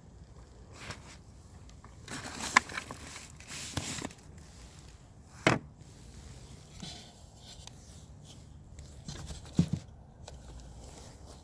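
Scattered handling noises: rustling and scraping with a few sharp knocks, the loudest about two and a half, five and a half and nine and a half seconds in.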